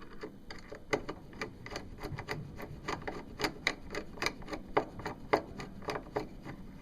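Small metal screws and parts clinking as they are picked through by hand, a string of irregular light clicks a few times a second.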